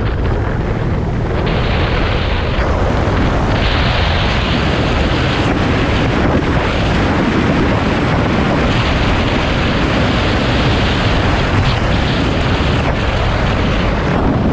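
Steady wind rush buffeting the microphone of a camera on a moving motorcycle, a loud even roar with no clear engine note.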